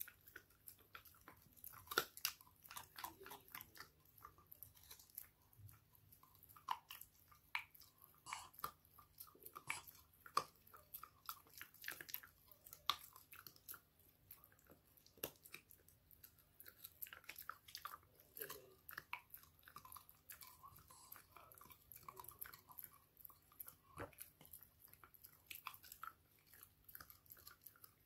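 Shiba Inu gnawing on a dog chew: irregular crunching and clicking of teeth on the chew, a few crunches a second with short pauses.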